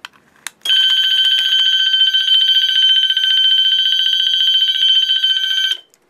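A key switch clicks, then a fire alarm bell on the releasing panel rings steadily, not pulsing, for about five seconds: the steady alarm that marks the manual release circuit going straight into release without a countdown. It cuts off abruptly when the alarm is silenced.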